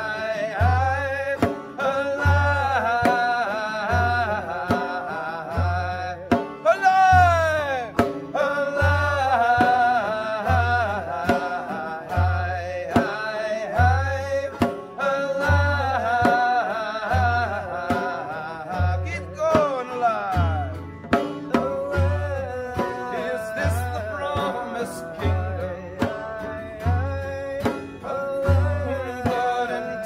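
Acoustic folk music: a low barrel-drum beat a little faster than once a second under banjo and guitar, with a lead melody that bends in pitch and makes two long sweeping slides.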